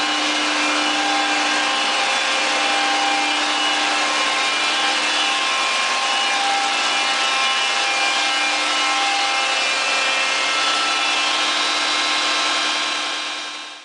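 Cummins QSV81-G natural gas engine of a 1100 kW generator set running at steady speed: a loud, even mechanical noise with several high whining tones over it. The sound fades out near the end.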